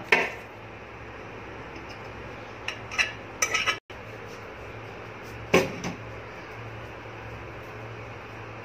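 Steel vessel clanking against a steel cooking pot as boiled dal is tipped and tapped out into it: a few sharp metal knocks, the loudest about five and a half seconds in, over a steady low hum.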